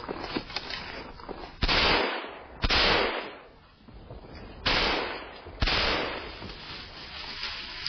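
Four loud gunshots in two pairs, the shots of each pair about a second apart. Each shot trails off in a long echo.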